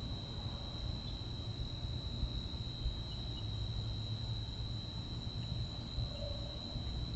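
Steady high-pitched chorus of night crickets, one unbroken trill, with a low rumble underneath.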